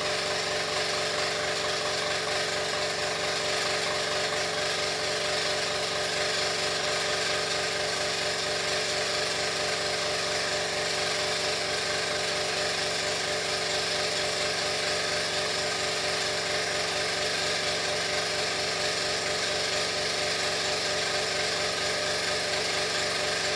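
Airbrush spraying paint with a steady hiss of air, over the steady hum and rapid low pulsing of its small air compressor running.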